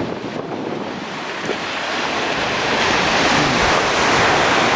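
Stormy sea surf, waves surging and breaking on a stony shore, building to a loud rush over the first few seconds, with wind buffeting the microphone.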